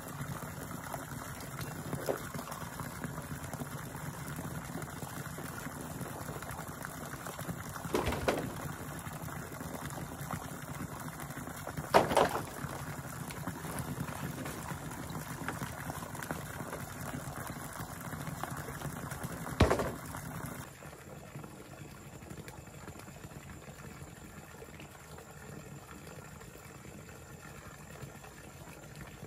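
Water splashing and bubbling steadily, with a few sharp knocks; the sound becomes quieter and changes about two-thirds of the way through.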